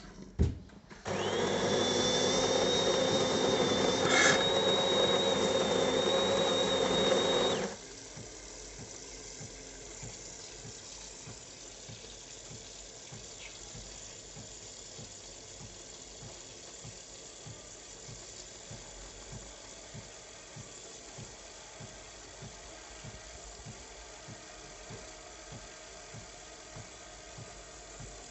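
A De'Longhi Dinamica Plus bean-to-cup machine's built-in conical burr grinder grinds beans for about seven seconds, a loud whirr with a high whine. It stops suddenly, leaving a much quieter steady hum with soft, regular pulsing as the machine goes on to brew.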